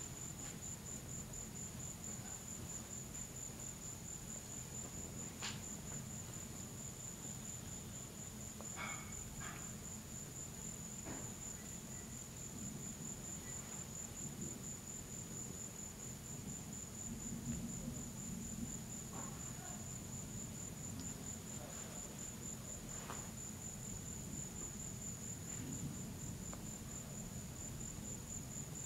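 Crickets chirping in a steady, rapidly pulsing high trill, over a low steady background rumble, with a few faint clicks.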